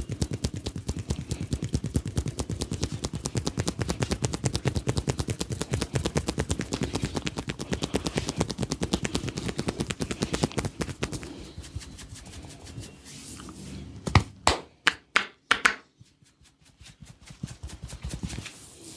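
Hands tapping rapidly on a head during a head massage, a fast, even patter of strikes that stops about eleven seconds in. A few seconds later come a handful of louder, separate sharp hand strikes.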